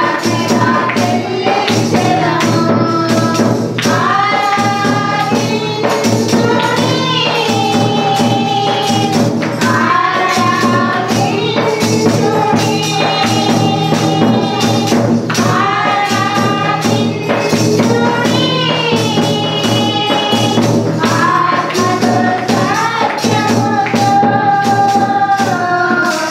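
Group singing of a Christian devotional song, carrying one bending melody over a tambourine that keeps a steady beat.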